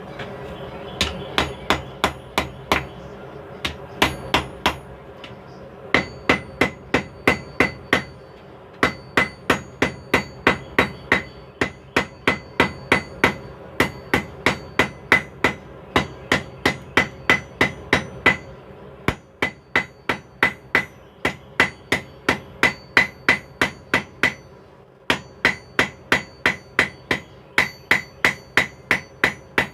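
Hand hammer striking steel on an anvil in runs of quick blows, about four a second, with short pauses between runs; each blow rings. The hammering is the blacksmith working the handles of a pair of forged tongs, and a steady low hum runs underneath.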